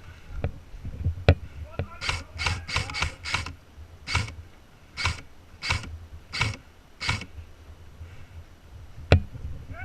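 Footsteps crunching on dry ground: a quick run of scuffing steps that slows to walking pace. Two sharp snaps stand out, one about a second in and one near the end.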